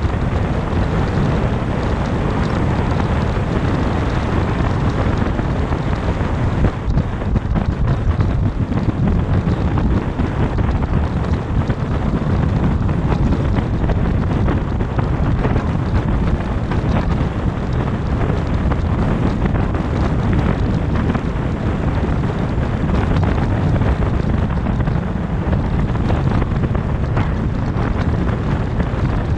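Steady road and wind noise from a car driving at highway speed: tyres rumbling on the pavement and rushing air, heaviest in the low end, with no change in pace.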